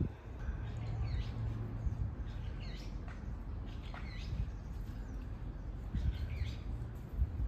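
Small birds chirping, short calls that slide down and up in pitch, repeated every second or so over a steady low rumble.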